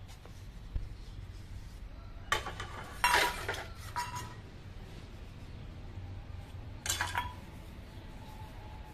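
Steel dishes and utensils clinking and knocking together as they are washed by hand. A few sharp metallic clinks with a short ring come about two seconds in, around three to four seconds, and again near seven seconds.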